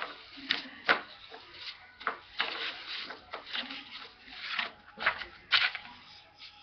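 Edge of a piece of cardboard scraping across paper, spreading a line of glue in short, irregular strokes, with a couple of sharper taps among them.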